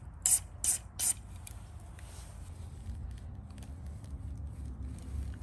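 Aerosol cleaner sprayed from a can through a red extension straw in three short hisses, with a fainter fourth, in the first second and a half. It is cleaning dirt out of an oil passage in an engine bearing housing. After that come only faint ticks of the parts being handled.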